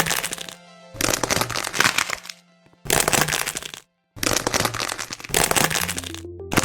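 Repeated bursts of crisp crackling crunches, about six, each under a second or so with short pauses between, over quiet background music with held notes.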